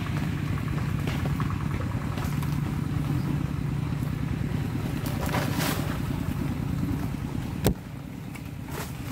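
Motorcycle engine running steadily. A single sharp knock comes about three-quarters of the way through, after which the engine sound is a little quieter.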